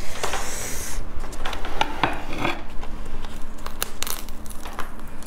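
Gloved hands working durian flesh pods loose from the spiky husk: plastic gloves rubbing and crinkling, with soft tearing and scattered small clicks.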